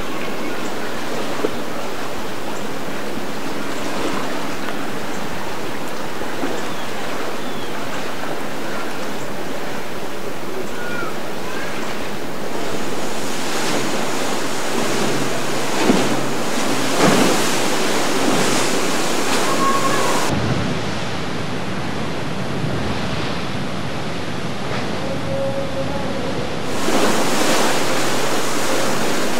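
Waves and surf washing, with wind buffeting the microphone; the rush swells louder a few times.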